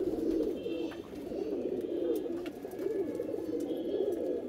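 Pigeons cooing continuously in a low, wavering murmur, with a few faint clicks over it.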